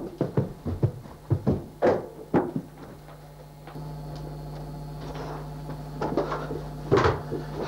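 A quick, irregular run of knocks and thumps for about the first two and a half seconds, then a steady low hum, with a few more thumps near the end.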